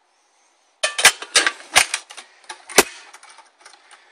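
A string of irregular sharp clicks and knocks, about eight in three seconds, starting after a brief dead-silent gap.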